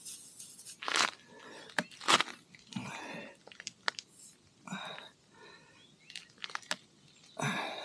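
Tyre-repair tool being forced into a puncture in a motorcycle tyre's tread: rubber crunching and scraping in irregular bursts with sharp clicks, as the hole is still too small for the plug and the tool has to be pushed through.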